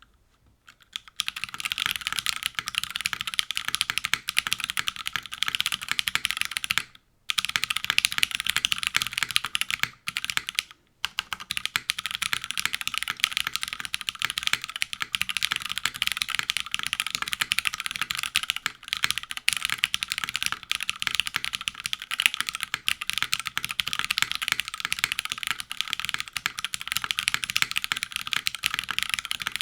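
Fast, continuous typing on a custom mechanical keyboard with lubed Cherry MX Black linear switches, an aluminium plate and GMK keycaps: a dense clatter of key presses. It starts about a second in and pauses briefly twice, near the first third.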